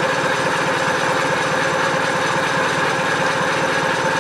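Outboard motor's electric starter cranking the engine over steadily in a fast, even rhythm without it firing: the spark plugs are disconnected, so the motor turns over only to pump cooling water through it.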